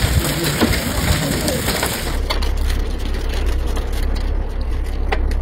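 Vehicle driving on a road covered in volcanic ash, with road and tyre noise and scattered small clicks. About two seconds in, a steady low rumble sets in.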